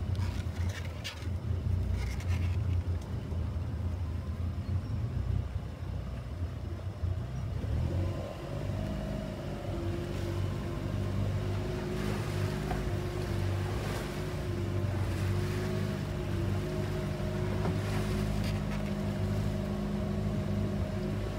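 Motorboat engine running under way, with water splashing against the hull. About eight seconds in, the engine note rises and then holds at a steadier, higher pitch.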